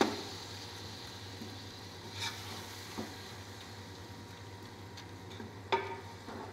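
Chopped tomatoes and fried onions sizzling in oil in a metal pot while a spoon stirs them, cooking the tomatoes down. The spoon knocks against the pot a few times, loudest right at the start and again near the end.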